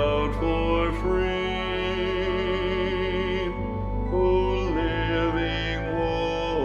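Choral music: voices singing with vibrato over sustained instrumental accompaniment, a rehearsal track with the alto part brought out.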